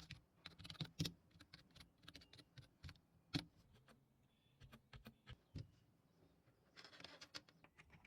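Keys of an Apple computer keyboard being pressed, irregular clicks of single keystrokes with a quick run of typing about seven seconds in.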